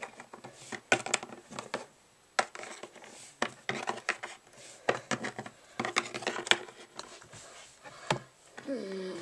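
Small plastic Littlest Pet Shop figurines clacking against each other and tapped on a wooden surface in a mock fight: irregular light clicks and knocks. A low humming tone starts just before the end.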